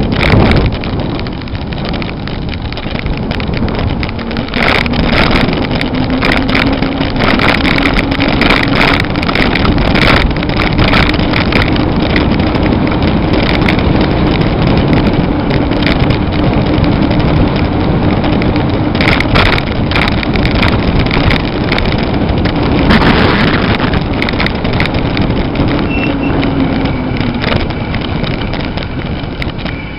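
Wind rushing over the microphone of a bicycle coasting at speed, with a low steady hum that rises slightly in pitch and then falls away near the end, and frequent knocks and rattles.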